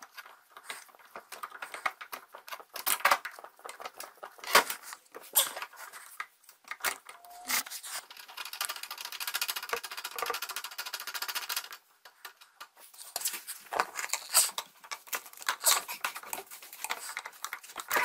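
A wrench working the dishwasher's front levelling legs to lower them: irregular sharp metallic clicks and knocks, with a stretch of steadier scraping in the middle.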